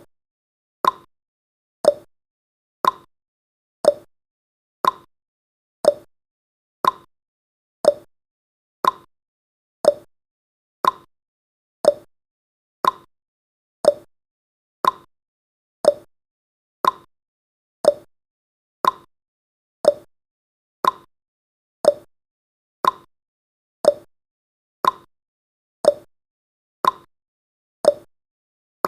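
Countdown timer's ticking sound effect: one short, sharp tick each second, steady and even, with silence between ticks.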